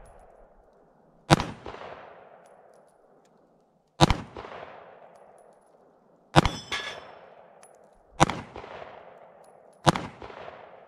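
Five slow, aimed shots from a Diamondback DB9 9mm compact pistol, spaced about two to three seconds apart, each trailing off in an echo. The fourth shot is followed by a brief metallic ring.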